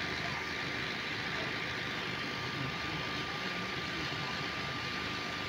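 Heavy quarry machinery running steadily: an even diesel engine drone with a thin, steady high whine on top.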